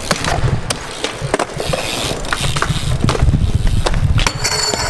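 BMX bike tyres rolling over a concrete skatepark, a steady low rumble with scattered clicks and knocks, and a brief high squeak near the end.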